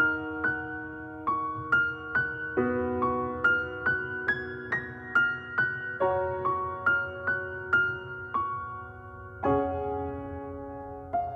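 Background music: a slow, sad piano melody of single notes over held chords, no singing.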